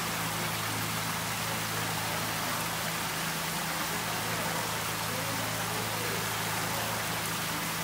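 Many thin streams of water pouring from overhead pipes into a live-fish tank, a steady splashing hiss like rain, over a steady low hum.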